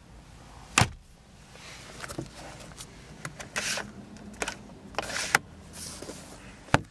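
A car's glove box door clicking shut about a second in, followed by scattered soft clicks and rustles as a sun visor is handled and its vanity mirror cover slid.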